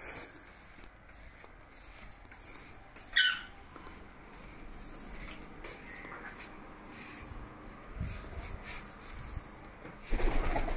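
A pet bird's single short call, falling in pitch, about three seconds in, over faint rustling; a louder burst of rustling near the end.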